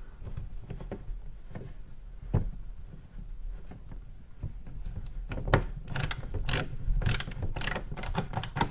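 Hand screwdriver driving a screw into a plastic skid-plate protector on a car's front splitter: sparse faint clicks, turning into a quicker run of sharp clicks about halfway through.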